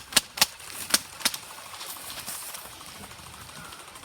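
Airsoft gun firing four sharp single shots at an uneven pace in the first second and a half, then only the faint open-air background of the field.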